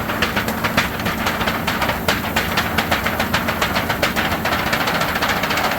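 DTF powder shaker machine running its shaking mechanism: a rapid, even rattle of knocks over a steady hum, which is normal for the machine.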